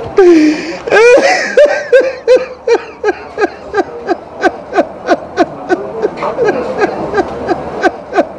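A person laughing hard and long, in quick rhythmic bursts of about three or four a second, with a louder outburst about a second in.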